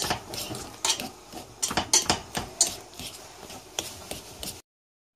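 Metal fork mashing boiled potatoes in a stainless steel pot, scraping and clicking irregularly against the bottom and sides. The sound stops abruptly near the end.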